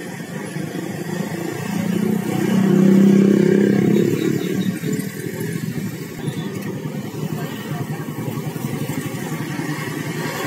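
Vehicle engines running close by, with a louder, steadier engine note swelling for about two seconds starting roughly two seconds in, then settling back to a steady rumble.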